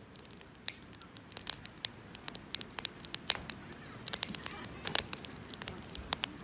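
Wood campfire crackling and popping: many sharp, irregular pops and snaps over a low hiss, coming thickest about four to five seconds in.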